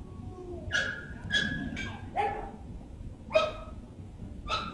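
Black Labrador retriever giving a series of about six short, high-pitched whines and yips, some falling in pitch.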